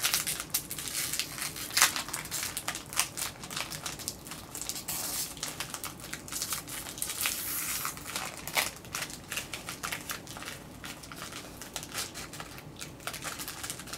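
Small snack wrapper of a Sakura Oreo cookie pack crinkling and tearing as it is worked open by hand: an uneven run of crackles and rustles that never settles.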